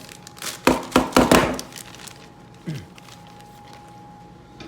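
Packaging and unboxed parts being handled: a quick run of knocks and rustles about a second in, then a single short scrape, with a faint steady hum behind.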